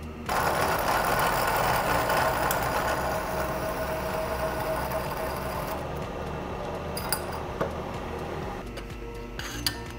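Hole saw in a milling machine cutting a miter into the end of a steel bicycle frame tube: a steady cutting sound with one held tone that eases off after about five and a half seconds as the cut ends, leaving the spindle running with a few small clicks.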